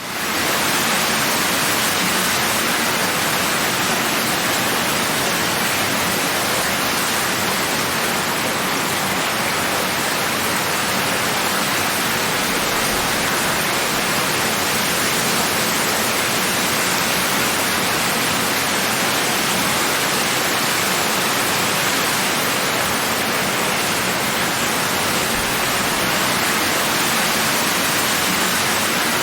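Steady heavy rain: an even, dense hiss of drops with no single patters standing out, rising quickly at the start and then holding level.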